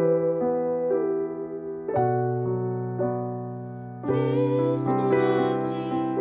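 Background music of soft keyboard chords changing every second or two under a wavering melody line, with a brighter, fuller layer coming in about four seconds in.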